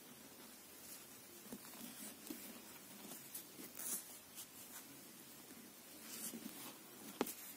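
Faint scraping and light clicking of knitting needles with the rustle of yarn as stitches are worked, and one sharper needle click near the end.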